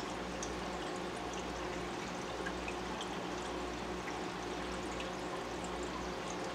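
Hang-on-back aquarium filter's outflow spilling into the tank: a steady trickle of running water with faint small ticks of bubbles.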